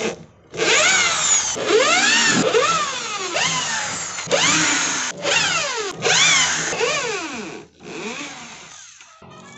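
Electric drill driving out the screws of a subwoofer cabinet's front panel, in about seven trigger-pulled bursts with short breaks. In each burst the motor whine rises and then falls away in pitch.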